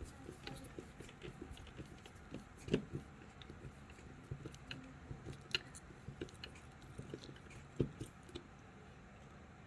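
Small irregular clicks and scrapes of a screwdriver turning small screws into a plastic robot kit, with the parts being handled. Two louder plastic knocks come about three seconds in and about eight seconds in.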